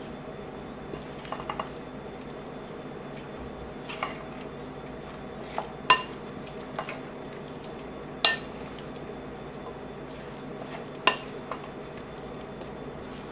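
Scattered sharp knocks and clicks of kitchenware being handled on a cutting board: a wooden spoon and mixing bowl put aside, then a cardboard tube of crescent roll dough picked up and turned over. The clicks come singly, the loudest about six and eight seconds in, over a steady low hum.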